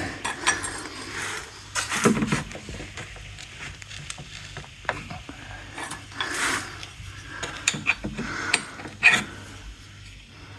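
A hand tool tightening the oil drain plug of a riding lawnmower engine through an access hole: scattered mechanical clicks and scrapes, with louder rattles about two, six and a half and nine seconds in.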